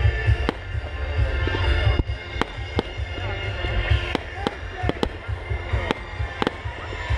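Aerial fireworks display: sharp bangs from shells bursting overhead, irregular, about one or two a second, over a deep low rumble.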